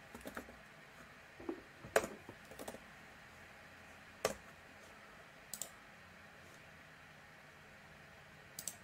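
Slow typing on a computer keyboard: single keystrokes with gaps of up to a few seconds between them, over a faint steady hiss.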